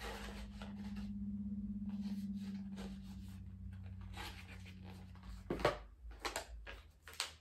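Small packaged items and a cardboard box being handled: light rustles and clicks, with a sharp click a little over five seconds in. Under the handling, a steady low hum with a fine pulse runs for the first five and a half seconds, then stops.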